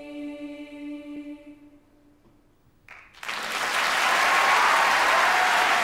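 A school children's choir holding its final chord, dying away over about two seconds; after a second of near silence, the audience breaks into loud applause.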